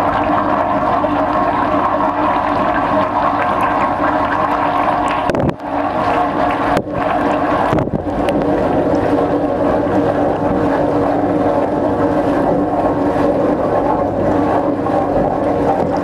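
Dishwasher wash cycle heard from inside the cabinet: jets of water from the spray arm spraying over the racks and the camera, over the steady hum of the wash pump. The spray noise dips briefly three times around the middle.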